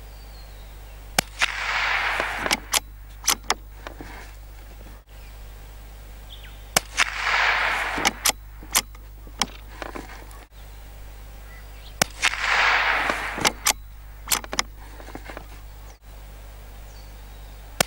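Lithgow LA101 bolt-action .22 LR rifle firing at a paper target, about one shot every five seconds. Each shot is a sharp crack followed by about a second of rolling echo, with lighter clicks in between.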